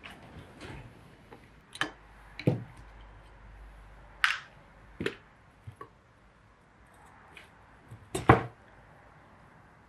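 Scattered sharp clicks and knocks of a screwdriver and small metal parts handled on a workbench as the throttle-butterfly screws and brass butterfly plate are worked out of a Dellorto DHLA carburetor. The loudest knock comes about eight seconds in.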